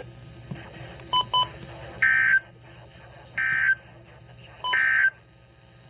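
Emergency Alert System end-of-message data code: three short, identical digital bursts, each under half a second and about 1.3 s apart, marking the end of the weather warning. Two quick beeps come just before the first burst.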